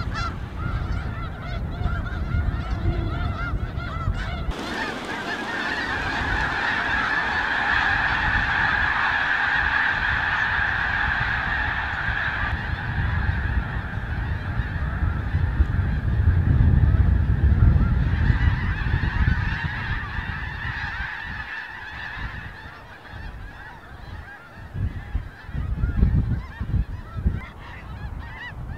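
A large flock of snow geese honking, a dense, unbroken chorus of overlapping calls. A low rumble comes in partway through and is loudest about two-thirds of the way in, and the calling thins out toward the end.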